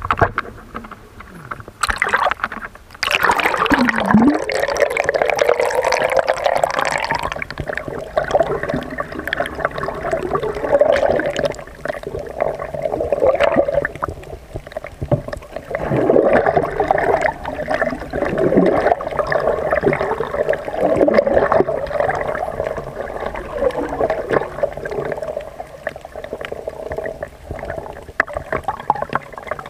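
Water splashes about three seconds in, then steady muffled gurgling and sloshing of water heard from underwater, as water moves around a submerged camera.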